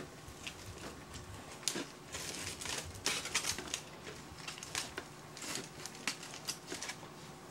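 Aluminium foil crinkling and crackling in short, irregular bursts as it is peeled open by hand from around a baked potato.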